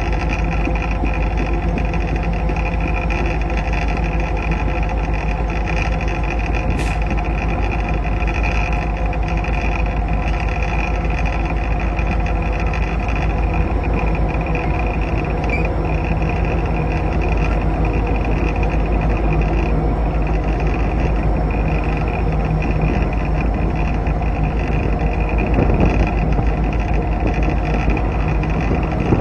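Diesel locomotive of an Alaska Railroad train running at speed: a steady engine drone and low track rumble.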